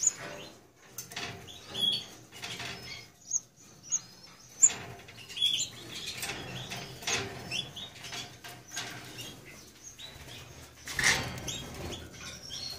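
Red mosaic canaries fluttering in their breeding cages, with brief high chirps scattered through and one louder flurry of wingbeats near the end.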